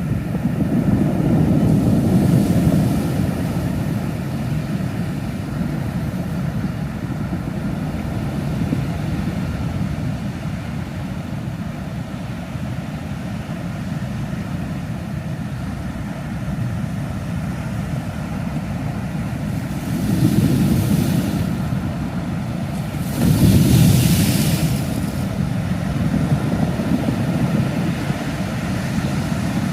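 Sea surf rumbling steadily, with waves breaking and washing in with a hiss about twenty seconds in and again, loudest, a few seconds later.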